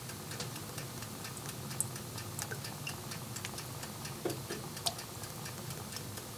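Thick coconut-milk curry simmering in a pan, bubbles bursting as irregular small pops and clicks, several a second.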